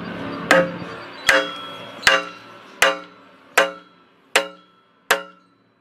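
Twelve-pound brass hammer striking a wooden block on top of a 6-inch PVC pipe, seven even blows about three quarters of a second apart, each with a short ringing tone. The blows drive a PVC extension pipe deep into the bell end of the piling below, a dry fit with no glue.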